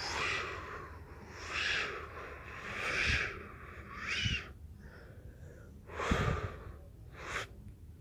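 Matrix-style slow-motion whoosh sound effects, played at low volume: a series of airy swooshes, about six in all, with a short rising-and-falling tone in one of them about four seconds in.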